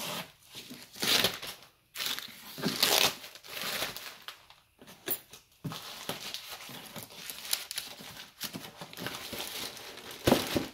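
Thin black plastic wrapping being torn open and pulled off a long cardboard box, crinkling and crackling in uneven rustles, with louder surges as it rips.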